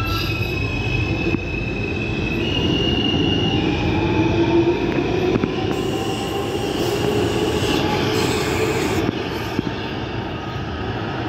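New York City subway R160B train pulling out of an underground station and picking up speed past the platform: a steady rumble of wheels on rail with high wheel squeal and a whine that rises in pitch as it accelerates.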